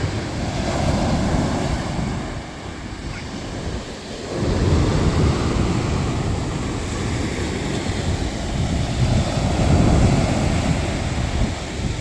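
Sea surf washing onto the shore. There is a lull about two to four seconds in, then a louder wave surges in.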